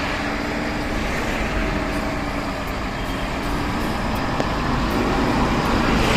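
Motor vehicle engine running steadily with road noise, getting slightly louder toward the end.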